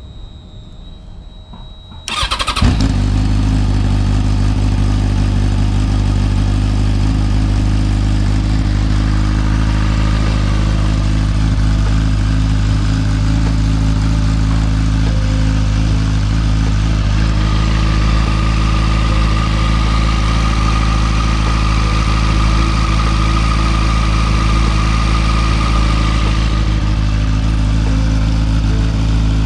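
Motorcycle engine cranked and catching about two seconds in, then idling steadily on freshly fitted spark plugs, with an even idle that no longer skips a beat.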